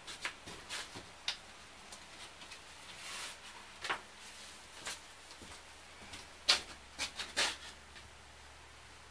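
Boot footsteps and scattered knocks on a travel trailer's stripped floor, with a short scrape about three seconds in as old linoleum is picked at. The sharpest knock comes a little past halfway.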